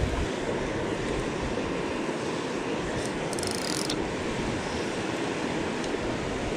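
Steady rush of a rocky mountain river's rapids, with a brief high hiss about three seconds in.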